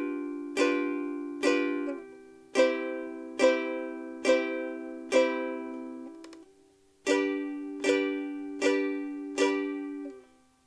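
Martin S-1 soprano ukulele strummed in single chord strokes, a little under one a second, each left to ring. The chord changes twice, once about two seconds in and again after a brief pause past the middle. The last chord fades out just before the end.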